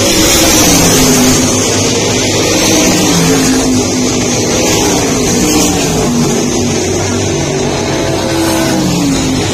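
Several race car engines running together at speed, their pitch falling as cars pass, over a steady noise of the pack.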